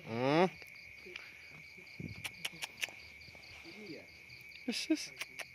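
A cat gives one loud meow, rising in pitch, right at the start, with a shorter call near the end, over a steady chorus of crickets. A few sharp clicks come in the middle.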